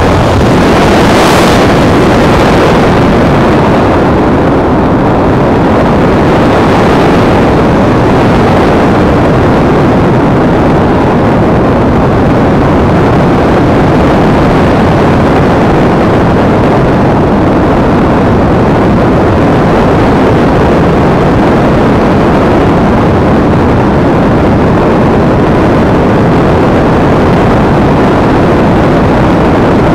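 Steady loud rushing noise from the onboard action camera of a Multiplex EasyStar RC model plane in flight: airflow buffeting the microphone, swelling briefly about a second in, with no clear motor tone standing out.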